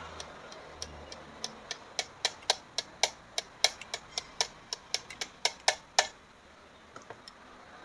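Sharp metal clicks of pliers squeezing and pressing on a small open-end wrench held at the needle bar of an old black Butterfly sewing machine, about four clicks a second for some five seconds, then a few faint ticks. This is the needle bar being adjusted because the needle sits too far from the hook, the cause of skipped stitches.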